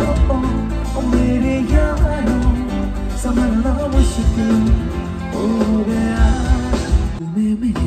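Live rock-fusion band playing a medley of Hindi film songs through a loud PA: a sung melody over electric guitars, bass, drums and keyboard. The bass and drums drop out for a moment near the end, then come back in.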